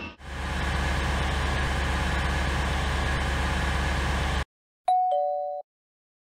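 A vehicle driving, a steady rumble that cuts off abruptly. About half a second later a two-tone doorbell chime sounds once, a high note then a lower one.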